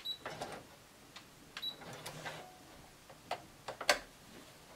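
Brother sewing machine being handled and set up for a stitch: scattered clicks and taps, with a couple of short high beeps and a brief low motor hum about two seconds in. The sharpest click comes near the end.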